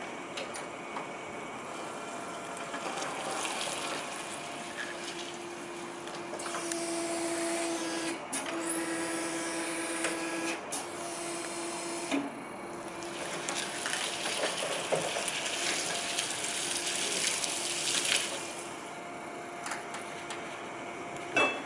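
Cat EP20NT three-wheel electric forklift working its mast: the electric hydraulic pump motor whines steadily in runs of a few seconds while the forks are raised, lowered and tilted, broken by short pauses and a few clicks.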